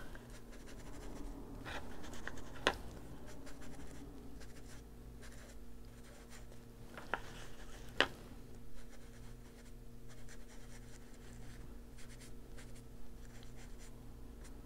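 Ink blending tool rubbing and dabbing Distress ink onto a coloring-book page: soft, scratchy rubbing with a few sharp taps, the clearest about 3 and 8 seconds in.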